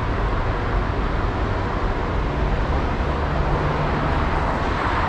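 Steady city-street traffic noise, a continuous low rumble with a faint low hum in the middle.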